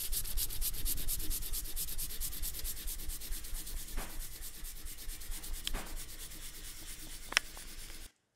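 Red crayon scribbled hard back and forth across sketchbook paper in rapid, steady strokes, several a second, with a few sharp clicks, the loudest near the end; the scratching cuts off abruptly just before the end.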